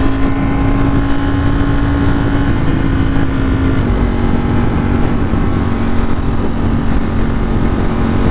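Ducati Streetfighter V4S's 1103 cc V4 engine running at a steady cruise, with wind rushing over the microphone. The engine note drops slightly a few seconds in, then holds steady.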